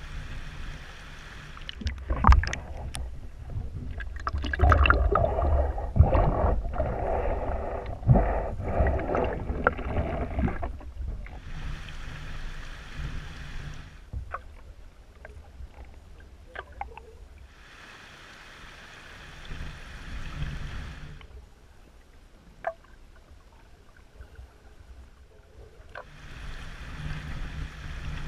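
Flowing river water, in turns the steady hiss of a shallow riffle and the muffled rumble of the current under water, full of sharp clicks and knocks.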